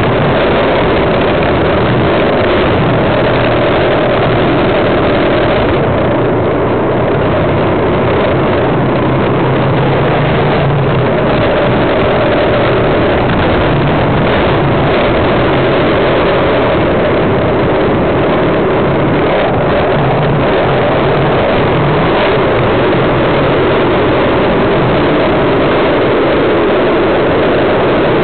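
Skateboard wheels rolling over block paving and asphalt, a loud steady rumble picked up close to the board.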